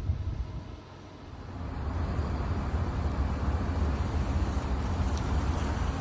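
Road traffic: a car's engine rumble and tyre noise swelling about a second and a half in, then holding steady.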